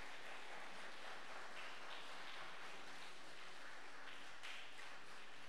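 Audience applauding: many hands clapping at once in a dense, steady wash.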